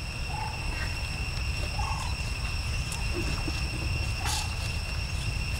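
Wild monkeys giving short, high calls, three brief squeaks a second or two apart, over a steady high ringing tone and low rumble, with one sharp click just past four seconds.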